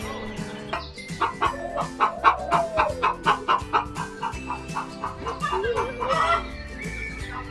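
Chickens clucking: a fast run of short, evenly repeated clucks, then a few drawn-out gliding calls, over background music.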